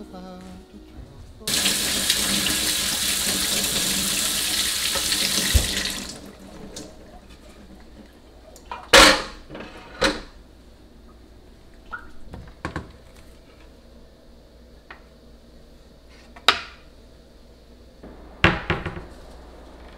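Kitchen sink tap running for about four seconds, rinsing a wooden cutting board, then stopping. Afterwards a few separate knocks and clacks of things being handled.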